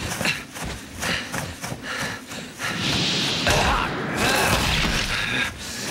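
Dramatic action-scene sound: a quick run of thuds and hits for the first couple of seconds, then a longer, denser noisy rush with a strained voice in it, easing off near the end.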